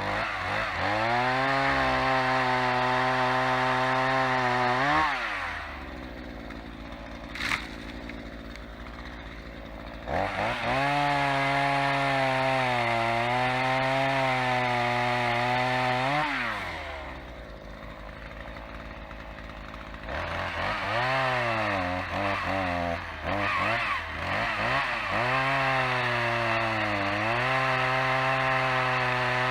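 Two-stroke chainsaw throttled up and held at full revs, its pitch sagging and wavering as it works, then dropping back to idle about five seconds in. It runs at full throttle again from about ten to sixteen seconds, idles, is blipped several times, and goes back to full revs near the end. A single short click is heard during the first idle.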